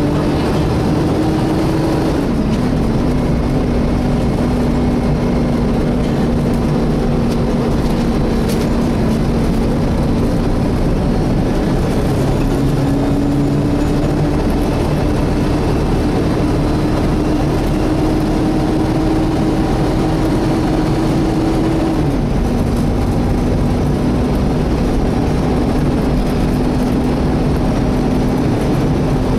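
Volvo B7TL bus's cooling fan whining steadily over the engine and road rumble, heard from inside the passenger saloon. The whine drops in pitch about two seconds in, slowly climbs again, and drops once more near the end.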